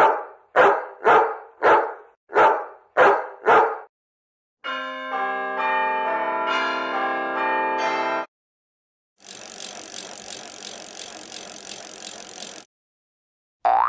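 Three sound effects one after another. First come seven short sounds, evenly spaced about half a second apart. Then a few seconds of held musical notes that change partway through, and then about three and a half seconds of even hiss-like noise that cuts off suddenly.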